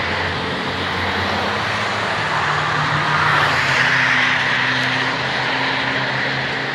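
Sports cars, Corvettes among them, driving past on a race circuit with their engines running at moderate speed. The nearest car passes close, its sound peaking about three to four seconds in, while another car comes on behind it.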